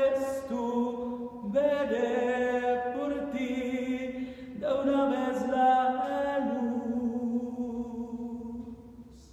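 A man singing unaccompanied in Spanish, in long held notes. The last note is held for several seconds and fades away near the end.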